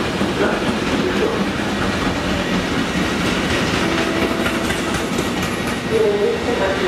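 Intermodal freight train of container and tank-container wagons passing at speed: a steady running noise of steel wheels on the rails, with light clicks as the wagons go by.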